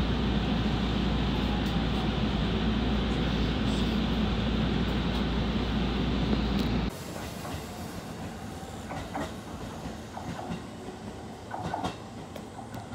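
Train running, heard from the passenger area behind the driver's cab: a steady rumble of wheels and running gear. It cuts off suddenly about seven seconds in, giving way to much quieter outdoor station-platform sound with a few faint brief noises.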